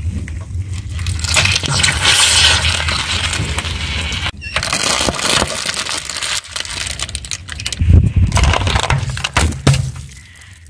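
A car tyre rolling slowly over objects on asphalt, crushing gel water beads and foil-wrapped snack packets with dense crackling and popping, in several short takes that cut off suddenly. A low rumble runs underneath.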